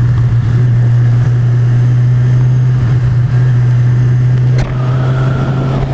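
Kawasaki Z1000 (2017) 1043 cc inline-four engine running steadily under way, holding one even engine note while cruising along a bend.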